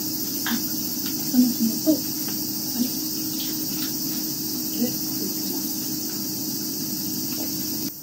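Steady high-pitched drone of insects trilling, with a few soft knocks, a cluster about a second and a half in and another near five seconds.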